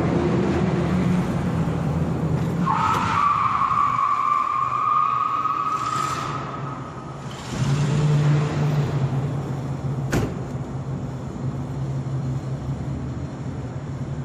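A car engine revving, then the tyres squealing in one long steady screech for about four seconds as the car slides through a turn, then the engine revving again; a single sharp snap about ten seconds in.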